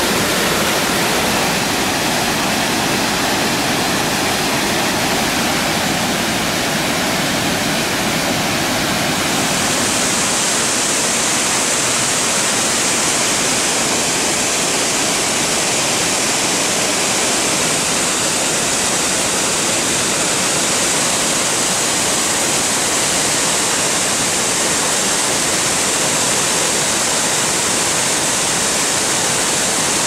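Sirithan Waterfall's water falling and splashing onto rocks: a steady, loud rush of white noise. About ten seconds in, the rush turns brighter, with a stronger high hiss.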